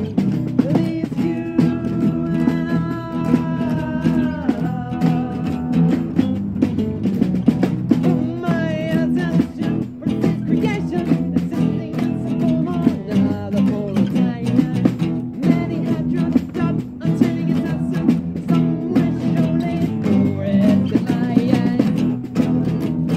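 An acoustic band playing live: strummed guitar chords carry on steadily, with a wavering melody line above them.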